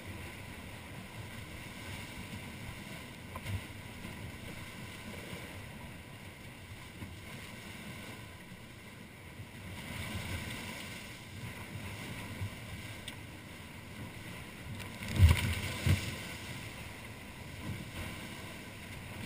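Water rushing along the hulls of a Wharram Tiki 38 catamaran under sail in a choppy sea, with wind on the microphone. Two heavier low thumps come about three-quarters of the way through.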